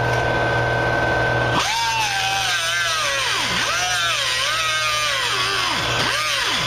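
An angle grinder with a cutoff wheel whines steadily as it spins free. About a second and a half in, it starts cutting a notch in a sheet-steel replacement rocker panel. The whine then drops and wanders up and down in pitch as the wheel bites, dipping sharply twice.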